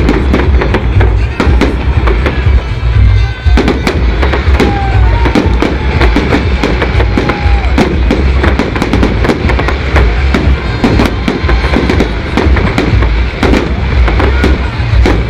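A fireworks display: loud, rapid, irregular bangs and crackles from bursting shells, over music playing.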